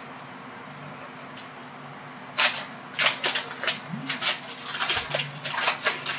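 Crisp, irregular clicking and crackling of a trading-card pack's wrapper and cards being handled, starting about two and a half seconds in after a stretch of only a faint steady hum.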